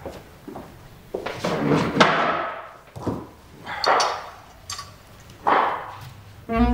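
Three heavy thumps or slams in a room, about two seconds apart, each with a short ring-out. Music starts right at the end.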